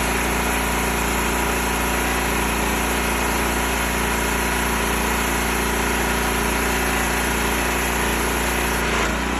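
Gas-engine pressure washer running steadily under load, with water hissing through a 36-inch Whisper Wash Maxima surface cleaner. The note shifts slightly near the end.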